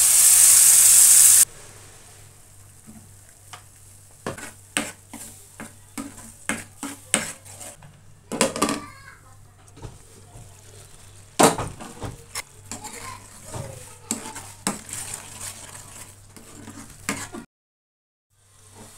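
Wet blended curry paste hits hot oil in a steel pan with a loud sizzling hiss that lasts about a second and a half. After that, a spatula scrapes and taps against the pan while the paste is stirred, with a sharper knock about eleven seconds in.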